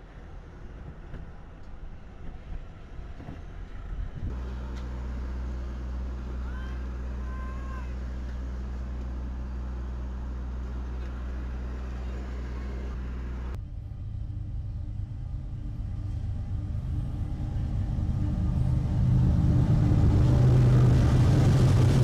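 Diesel freight locomotives passing close, their engine rumble rising steadily to its loudest in the last few seconds. Before that comes a steady low hum with a few bird chirps.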